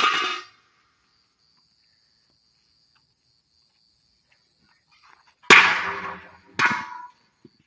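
A loud sharp bang right at the start, then after a long pause two more bangs about a second apart, each with a short ringing tail. Crickets chirp steadily in the background.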